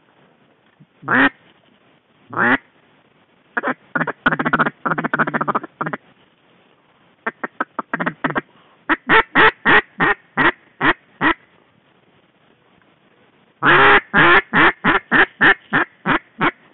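Wood duck call blown close by: two single drawn-out squealing notes, then quick runs of short whistled notes, each dropping in pitch, about four a second, with the loudest run near the end.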